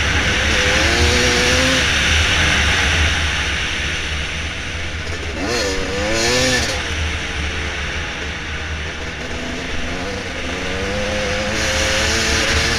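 Dirt bike engine running on a trail, its pitch rising and falling as the throttle is worked, with a quick rev up and back down about halfway through, over a steady low rumble.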